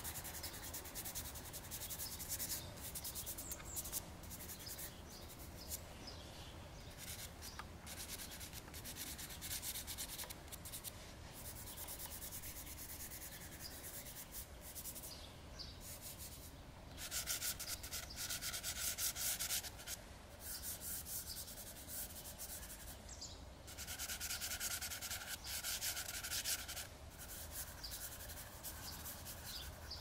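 Dry pastel being worked on sketchbook paper: the stick scratching across it in repeated strokes and fingers rubbing the pigment in. Two longer, louder stretches of scraping strokes come past the middle.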